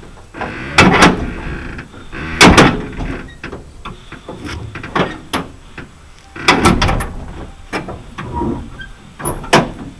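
A string of loud metallic clanks and thuds from handling the stripped sheet-metal cab of an Isuzu truck during disassembly. The heaviest knocks come about a second in and at two and a half seconds, with clusters of lighter clanks later on.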